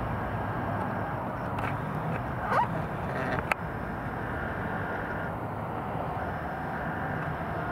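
Steady outdoor background noise, like wind and distant traffic on a phone microphone. A short rising call cuts through about two and a half seconds in, and there is a single sharp click about a second later.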